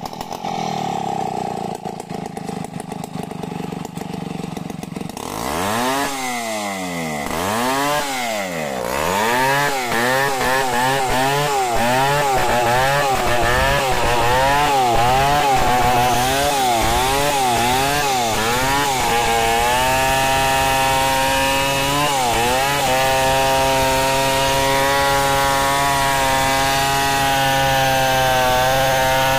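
A Stihl 070 two-stroke chainsaw rip-cutting lengthwise through a log to mill it into planks. The engine runs low for the first few seconds. It then climbs, its pitch rising and falling about once a second as it works into the cut. From about two-thirds of the way in it holds a steady high note under load, with one brief dip.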